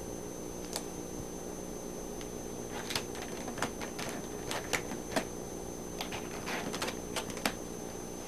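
Irregular crackling clicks from a cat nosing into a plastic bag of cat food, sparse at first and coming more often in the second half.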